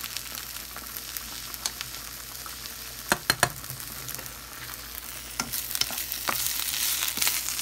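Food sizzling in a pan on the stove, with a utensil clicking sharply against the pan twice a little after three seconds in and a few lighter clicks. The sizzle grows louder near the end.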